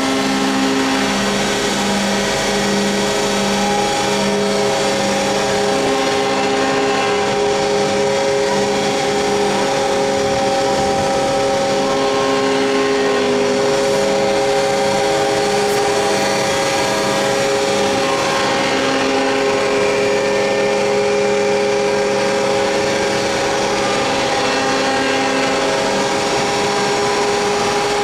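ABA surface grinding machine running: a steady mechanical whine made of several held tones, with a low hum that pulses about twice a second for the first few seconds.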